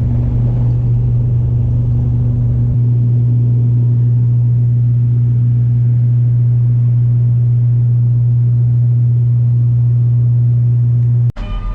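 Propeller plane's engines heard from inside the cabin: a loud, steady, low drone that cuts off abruptly near the end.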